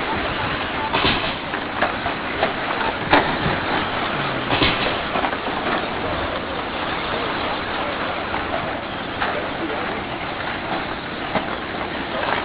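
Radio-control short-course trucks racing on a dirt track: a steady wash of electric motor and tyre noise, broken by a few sharp knocks in the first half.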